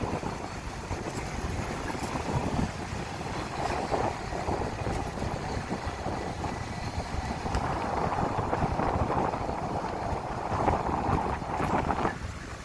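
A truck driving along a street, heard from inside: steady engine and road noise with wind rushing past the microphone.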